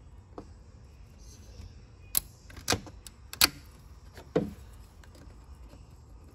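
Pliers clicking against metal while squeezing a hose clamp on a turbo coolant line: four sharp clicks between about two and four and a half seconds in, the third the loudest.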